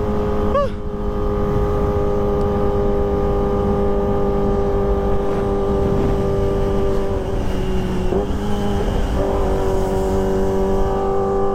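Kawasaki ZX-25R's 250 cc inline-four running through a ProLiner TR2 full-system exhaust, held at a steady high engine speed while cruising, with wind rushing underneath. The pitch rises briefly about half a second in and dips briefly about eight seconds in before settling again.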